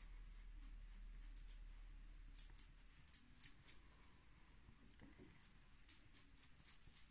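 Makeup sponge dabbing liquid foundation onto skin: faint, irregular small clicks, several a second.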